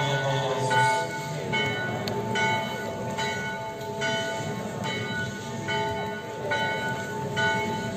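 A bell rung steadily, about one stroke every 0.8 seconds, each stroke ringing on into the next, over the low shuffle and murmur of a large crowd on the move.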